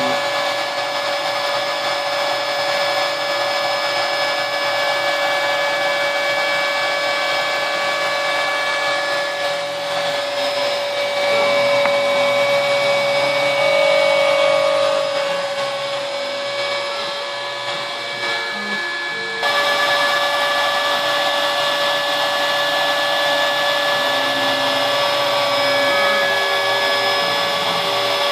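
Homebuilt CNC router carving a wooden sign: the spindle motor whines at a steady pitch while the stepper motors hum in short tones that change pitch as the axes move. The sound steps up abruptly about two-thirds through.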